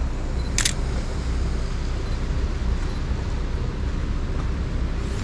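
A single shutter release of a Sony A7C mirrorless camera: one short, sharp click about half a second in, over a steady low rumble of city street traffic.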